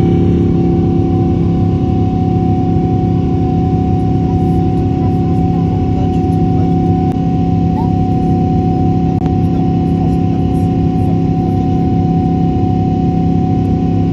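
Jet airliner cabin noise during the climb: the steady low rumble of the turbofan engines with a thin, steady whine over it.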